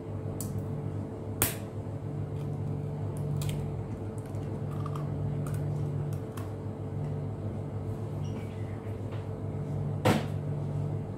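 Eggshell knocking against a ceramic bowl as an egg is cracked open, a sharp click about a second and a half in. A few more light knocks follow, the loudest near the end, over a steady low hum.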